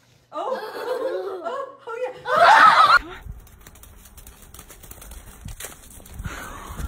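A person laughing and snickering in short, wavering bursts, loudest and highest about two and a half seconds in. After that comes a much quieter stretch of low background noise.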